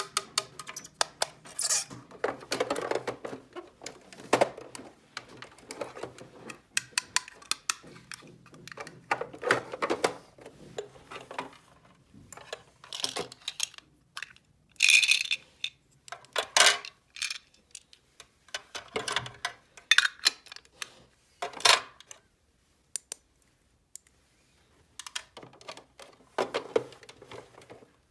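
Small hard plastic toy pieces being handled and set down, with irregular clicks, taps and short clattering rattles.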